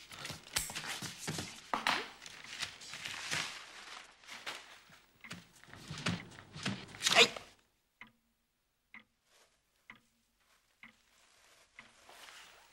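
Brown paper wrapping being torn and crumpled off a box: irregular bursts of rustling and tearing, loudest about seven seconds in. Then it goes almost quiet, with a few faint taps about once a second.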